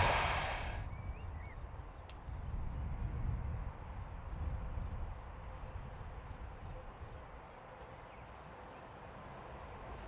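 Quiet rural trackside ambience: a steady high-pitched insect trill over a low rumble, with a couple of brief bird chirps. The noise of a passing electric train fades out in the first second.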